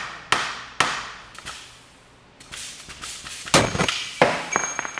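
Hammer striking the top of a cylinder head stud and nut in a clamp-load test fixture: three sharp metal hits about half a second apart in the first second, each ringing briefly. Later come a hiss and two louder metallic bangs, followed by a high, lingering ring.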